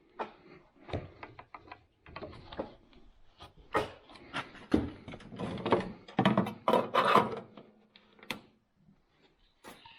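Irregular knocks, clicks and scrapes of equipment being handled, the loudest clatter about four to seven seconds in.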